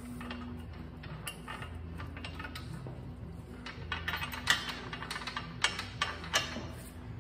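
Bolts and nuts being fitted by hand to the metal rear bracket of an electric zero-turn mower: light metallic clinks and clicks, a cluster of sharper ones about four to six and a half seconds in.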